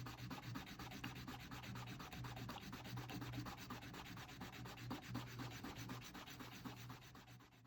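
Fast typing on an XD96 custom mechanical keyboard with lubed Gateron Cream linear switches and PBT keycaps in an aluminium case: a dense, unbroken clatter of keystrokes that fades out near the end.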